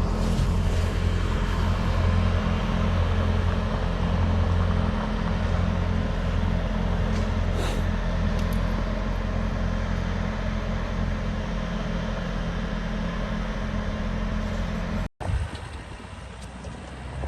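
Skid steer engine running steadily with a low, even hum. About fifteen seconds in the sound cuts out abruptly, then comes back quieter.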